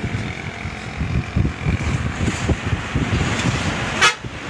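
Wind buffeting a phone's microphone in uneven gusts over the sound of trucks passing on a road bridge, with a short, loud rush of noise about four seconds in.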